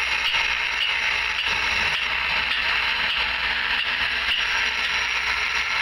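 Abrasive grinding wheel grinding a hand-held steel ring: a steady, high, hissing grind that keeps on without a break.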